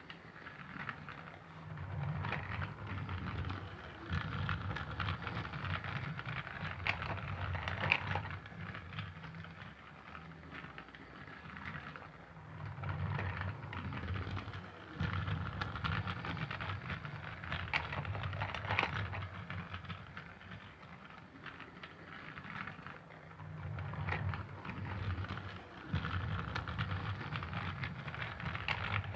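Battery-powered Thomas the Tank Engine toy train running, its small motor humming and its wheels clattering on the track. The sound grows louder and fainter in a cycle of about ten seconds.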